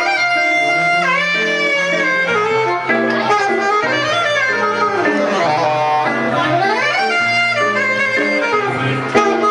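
Live jazz from a saxophone and a hollow-body electric guitar: the saxophone plays a melody with held notes and slides between them while the guitar plays underneath.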